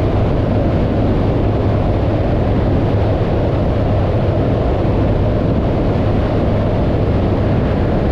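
Light sport aircraft's engine and propeller running steadily in flight, a loud low drone under heavy rushing wind noise.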